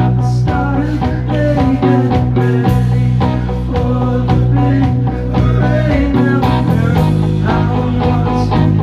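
Rock band playing live: electric guitars, bass guitar and drum kit, with a male lead singer.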